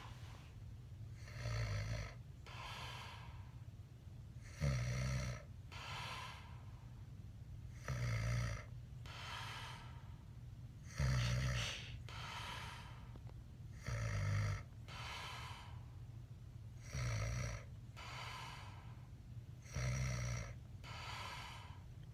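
A sleeping man snoring heavily in a slow, regular rhythm: a loud rasping snore about every three seconds, each followed by a softer breath.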